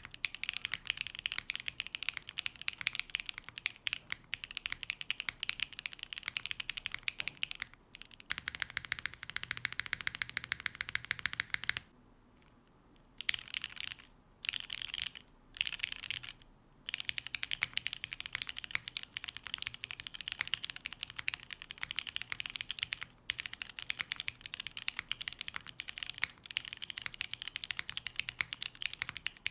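Fast, continuous typing on a Qi65 R2 custom 65% mechanical keyboard with a carbon-fibre plate and Poron gasket mount: rapid clacking keystrokes. About a third of the way in the keystrokes turn fuller and deeper for a few seconds, then the typing stops for about a second and pauses briefly a few more times before running on.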